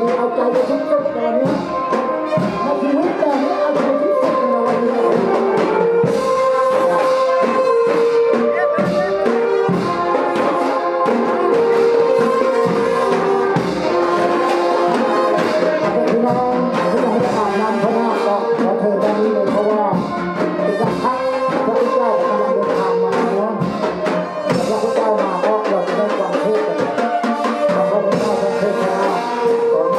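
Brass band music: trumpets and trombones playing a melody of held notes over percussion.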